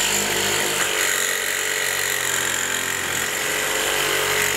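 Power drill spinning a hole saw through wood in one steady cut, its motor pitch shifting slightly as it bites.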